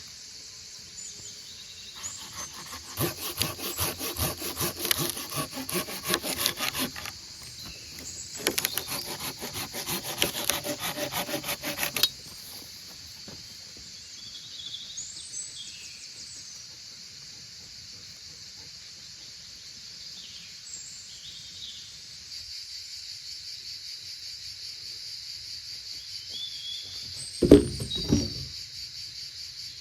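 Wood being sawn by hand in two bouts of rapid rasping strokes, each a few seconds long. A steady high insect chorus runs underneath, and a single loud knock comes near the end.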